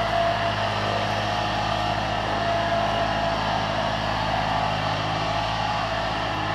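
Takeuchi TB216 mini digger's three-cylinder diesel engine running at steady revs.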